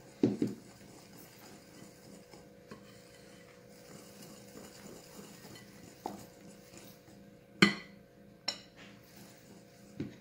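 Wire hand whisk stirring flour into cake batter in a glass bowl: soft scraping and stirring, with a few sharp clinks of the whisk against the glass, the loudest about three-quarters of the way through.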